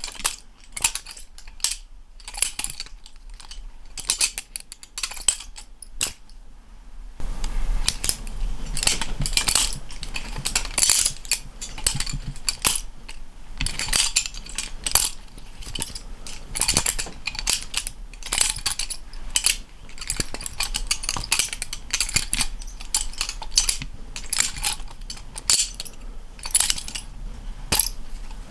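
GoFlipping budget balisong with stainless steel handles being flipped: handles and blade clacking and clinking against each other again and again in quick, irregular runs, busier from about a quarter of the way in.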